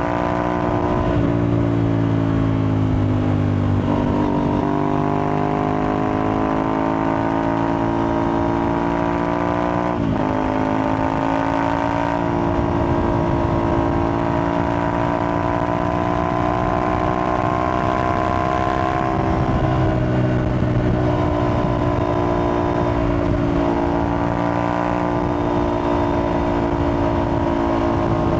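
Aprilia Tuareg 660's parallel-twin engine running through an aftermarket Akrapovic-replica exhaust while riding. The revs sag and recover in the first few seconds, drop suddenly about ten seconds in, then climb slowly.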